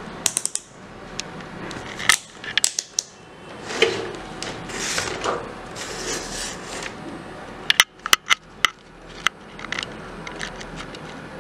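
Handling noise from a Mastech MAS830L digital multimeter as it is picked up and set down and its test leads are moved. It gives scattered sharp plastic clicks, with a quick run of several clicks about eight seconds in as the rotary range selector is turned through its detents.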